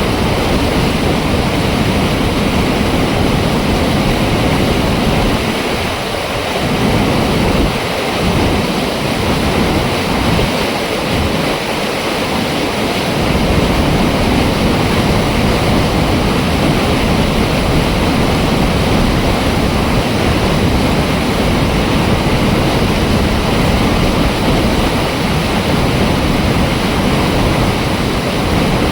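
Water rushing through an open dam flap gate, a loud, steady rush of falling water.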